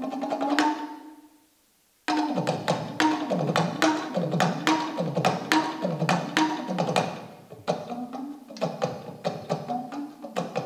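Talking drum struck in quick rhythmic patterns, its pitch swooping down and back up about twice a second as the drum is squeezed under the arm. The playing fades out about a second in, breaks off for a moment, and starts again.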